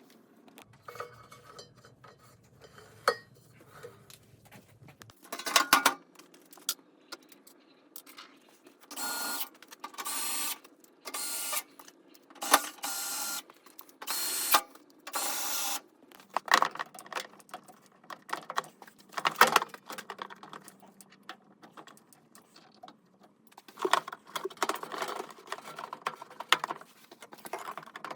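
Tools and metal parts clinking and rattling during washing-machine bearing repair work, with a run of about seven short bursts of hissing or whirring noise in the middle.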